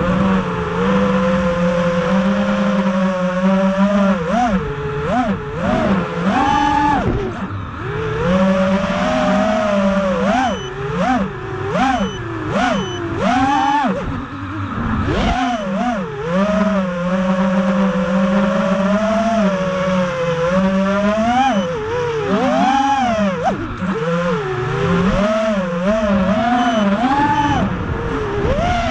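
FPV racing quadcopter's brushless motors and 3-blade props whining, the pitch swooping quickly up and down as the throttle is worked, with a few steadier stretches in between.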